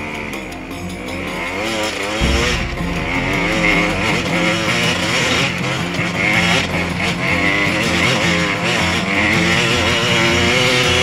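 Enduro dirt bike engine revving up and down as it is ridden over rough ground, heard from on the bike. It gets louder about two seconds in.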